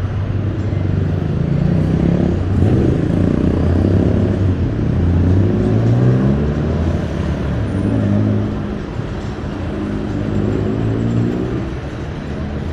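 Road traffic at a roundabout: several cars' engines pull away with rising engine notes, one after another, over a steady traffic rumble.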